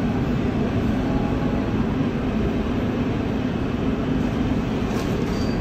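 Steady low background rumble, like a room's machinery or ventilation hum, with a faint click about five seconds in.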